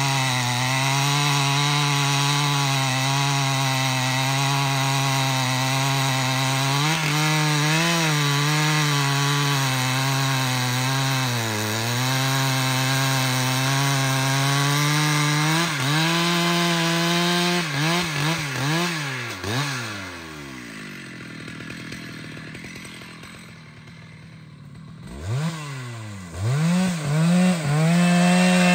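Large professional two-stroke chainsaw cutting into a tree trunk at full throttle, its pitch dipping briefly several times. About two-thirds of the way through it is revved down and up a few times and falls back to a much quieter running for several seconds, then revs back up to full throttle near the end.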